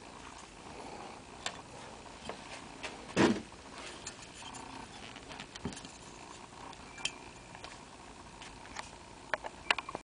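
Metal parts of an old Seldon Bailey patent cast-iron bench plane handled by hand: scattered clicks and clinks as the cam-lock lever cap and iron are worked, with one louder clatter about three seconds in and a quick run of sharp clicks near the end.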